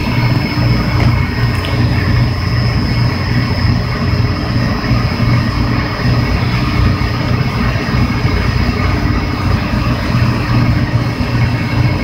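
HVAC equipment running: a steady low hum with a rushing noise over it and a faint, thin high whine.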